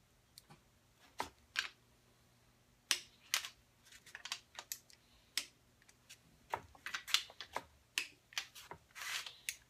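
Sharp metallic clicks from a torque wrench and socket on the ARP head-stud nuts of a Ford 302 V8's cylinder head, as each nut is re-checked at 27 foot-pounds. The clicks come singly at uneven intervals, with a quick cluster near the end.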